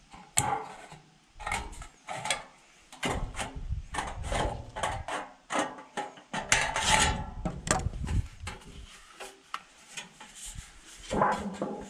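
Sheet-metal siding being handled and cut by hand: irregular clicks, clanks and scraping rustles of the thin metal piece.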